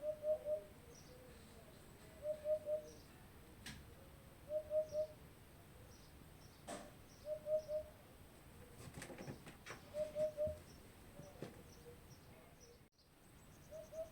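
A bird repeating a soft, low three-note hooting phrase five times, about every two and a half seconds, with faint high chirps from small birds and a couple of sharp clicks between.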